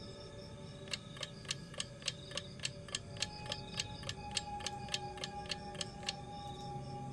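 A steady run of about nineteen sharp ticks, roughly three a second, starting about a second in and stopping about a second before the end. Behind them, crickets chirp continuously, and a held tone comes in about halfway through.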